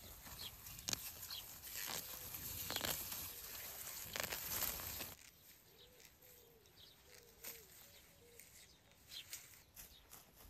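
Green garlic being pulled up by hand: leaves rustling and stalks tearing, with several sharp crackling snaps. About five seconds in the sound drops suddenly to a faint outdoor background.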